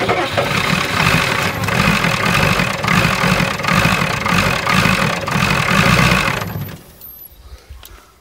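Starter cranking the 1985 Ford F350's 6.9 IDI V8 diesel engine, a loud rhythmic churning that goes on for about seven seconds without the engine catching, then stops suddenly.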